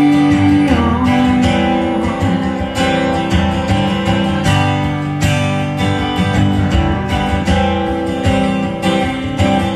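Acoustic guitar strummed in steady rhythm through an instrumental break of a folk song, with a long held note ending a little under a second in.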